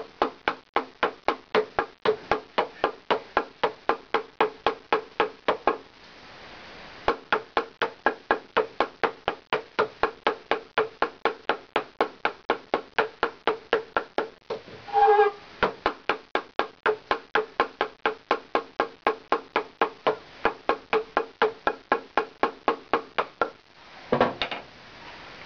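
Small hammer tapping the side of a wooden sieve box about four times a second, each knock ringing at the same pitch, to shake powdered potassium nitrate through the 80-mesh screen. The tapping pauses briefly about six seconds in, has one louder knock midway, and stops just before a short, noisier sound near the end.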